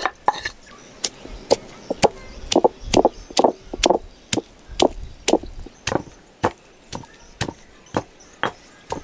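Knife chopping on a wooden cutting board in a steady rhythm of about two strokes a second, each stroke a sharp knock.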